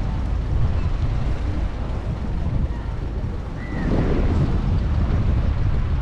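Wind buffeting the microphone, a steady low rumble, with faint outdoor background noise.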